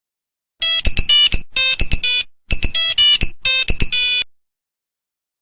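Nokia mobile phone ringtone: a short phrase of electronic beeping notes, played twice with a brief pause between.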